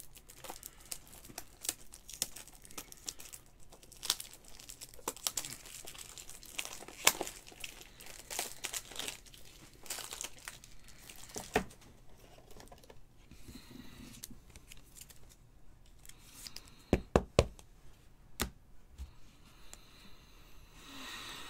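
Foil trading-card pack wrappers being crinkled and torn open, a long run of small crackles and snaps, with a few sharper knocks about halfway and again about three-quarters through.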